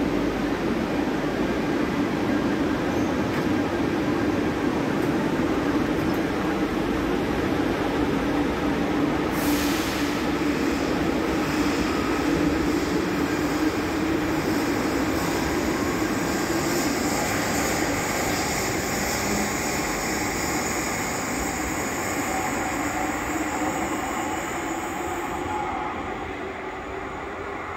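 Barcelona Metro Line 1 train of the 4000 series departing a station platform: steady rumble of the running gear with a motor whine that comes in about ten seconds in and rises slightly in pitch as the train gathers speed. The sound fades near the end as the train enters the tunnel.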